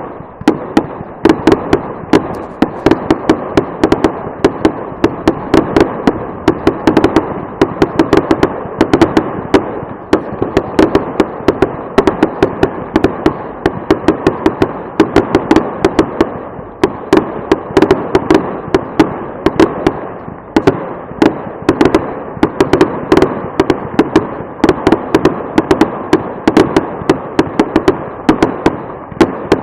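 Loud fireworks display: a continuous barrage of sharp bangs and crackling, several reports a second without a break.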